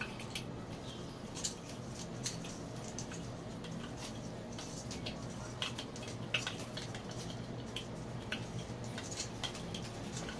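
PTFE thread seal tape being pulled off its roll and wound around a threaded pipe stub, giving faint irregular clicks and crinkles over a steady low hum.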